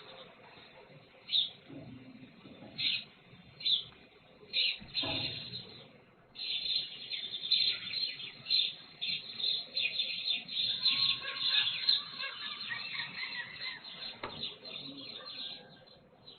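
Sparrows chirping: a few separate chirps at first, then from about six seconds in a dense run of rapid chirping that thins out near the end.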